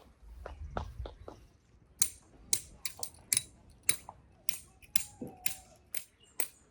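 A regular run of about ten sharp clicks or knocks, roughly two a second, starting about two seconds in, after a few fainter clicks and some low rumble.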